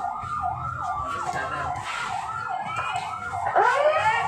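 Emergency siren in a fast yelp: quick falling sweeps about three times a second, with a louder upward sweep near the end.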